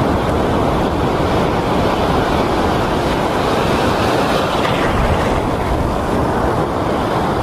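Ocean surf washing in over shallow rocks, a steady loud rushing, with a wave breaking close by about four seconds in.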